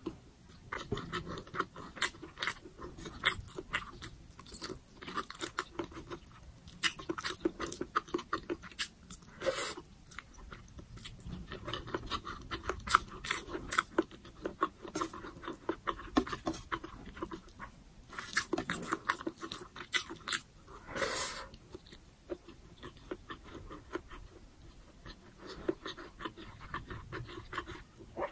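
Close-miked chewing of braised pork humba and rice: a steady run of short, wet mouth clicks and smacks. There are a few longer, louder mouth sounds about ten seconds in and again about twenty-one seconds in.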